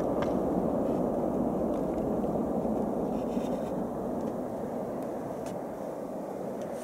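Boeing 747-400 freighter's four jet engines in reverse thrust during the landing rollout: a steady, deep rush of engine noise that slowly fades as the aircraft rolls away.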